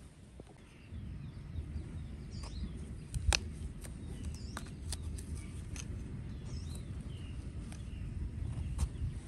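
Knife cutting into a halved jackfruit, with a few sharp clicks over a steady low rumbling noise. Small birds chirp now and then.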